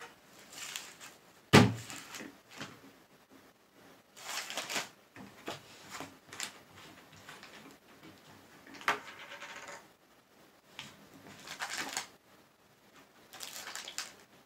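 Handling noises on a tabletop: a heavy thud about a second and a half in as a large plastic jug of hot sauce is set down, then scattered rustling, scraping and clicks as its cap is twisted off and a snack bag is handled.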